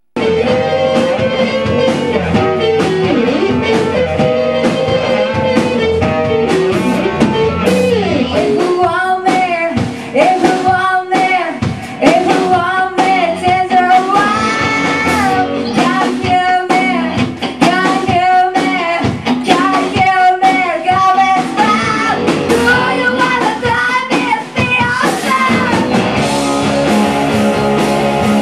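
Rock band music led by electric guitar, played loudly and without a break.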